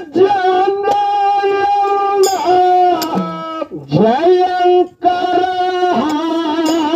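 A man sings a Kannada dollina pada folk song in long held notes through a microphone, breaking off briefly between phrases.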